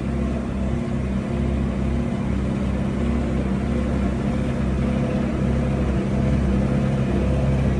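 Tractor engine running steadily under load as it pulls a Massey Ferguson 1842S small square baler at a steady baling pace, a constant low mechanical drone.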